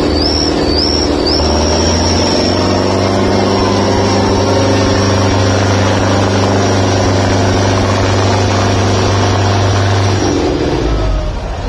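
Two tractors' diesel engines running flat out under heavy load as they pull against each other in a tractor tug-of-war, with a high steady whine over the engine sound. The engines ease off about ten seconds in.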